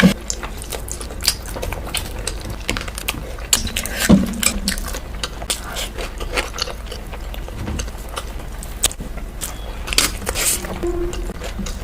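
Close-miked eating sounds: irregular wet smacks, clicks and crunches of someone chewing and biting into curry, rice and seafood, with a few louder knocks, over a steady low hum.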